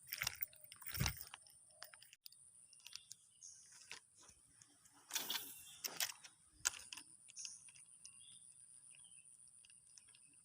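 Scattered clicks and short rustles of close handling, busiest in the first second and again around five to six seconds in, over a faint steady high hiss.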